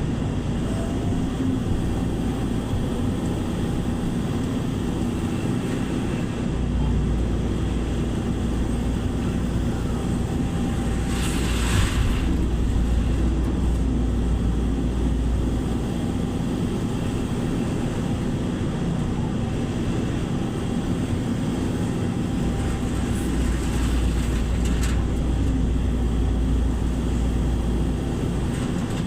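Heavy engine running steadily at a constant speed. A short hiss comes about eleven seconds in, and a fainter one near the end.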